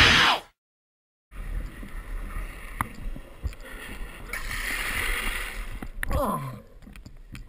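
The music ends, and after a short silence comes the steady rush of wind on the camera's microphone and the rumble of longboard wheels rolling on asphalt, with scattered clicks. Near the end a short cry falls in pitch.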